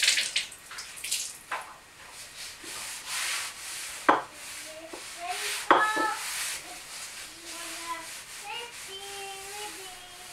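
Kitchen work noises: repeated short bursts of scraping or rubbing, and two sharp knocks or clinks about four and six seconds in.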